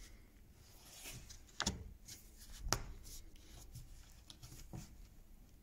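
Faint rubbing and handling of wood as a glued oak patch is pressed down into its recess in an oak frame by hand, with a couple of short sharp clicks about one and a half and two and a half seconds in.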